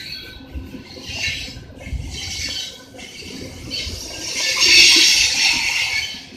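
Freight cars of a long freight train rolling past on the rails: a rushing, rattling wheel-and-rail noise that swells and fades over a low rumble, loudest about five seconds in.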